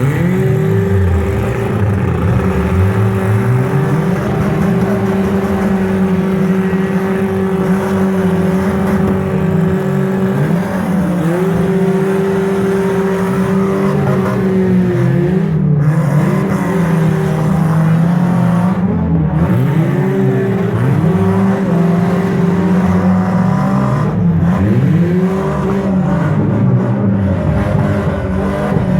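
Several demolition derby cars' engines running and revving at once, their pitches rising and falling as they accelerate and ease off, one engine holding a steady note for long stretches.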